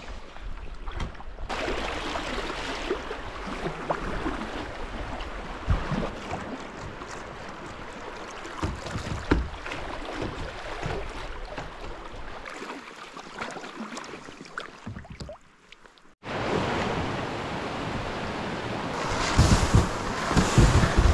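Fast river water rushing and splashing around a kayak, with wind buffeting the camera microphone. The sound drops out briefly about three-quarters of the way through, then returns louder, with heavy gusts of wind noise near the end.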